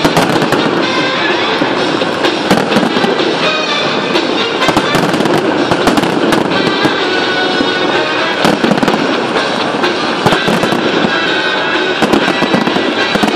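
Large fireworks display: a continuous, rapid barrage of bangs and crackling with no let-up, with music playing underneath.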